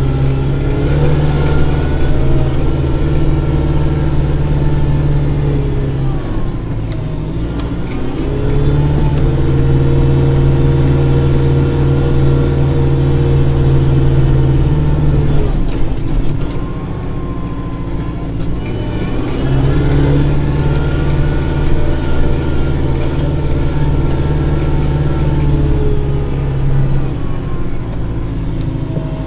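Kubota tractor's diesel engine running with its snowblower engaged, clearing snow. The engine note swells louder three times, each for several seconds, and eases off briefly in between.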